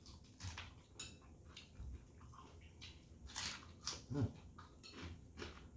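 Quiet eating sounds of fried chicken being eaten: scattered soft clicks and mouth smacks, with a brief low murmur about four seconds in.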